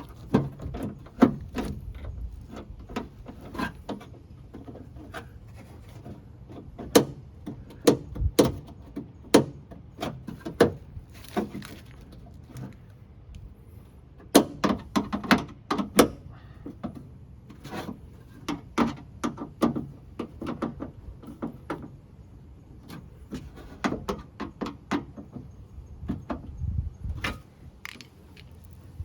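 Irregular clicks, knocks and light rattles of metal parts being handled, typical of working on a car's rear door latch and lock, with the door jammed shut.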